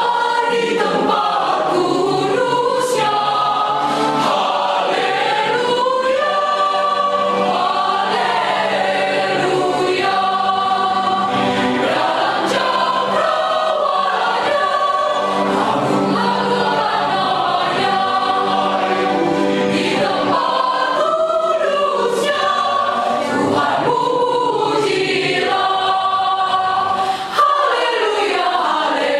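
Mixed choir of men and women singing together in parts, with steady held low notes from an electronic keyboard underneath.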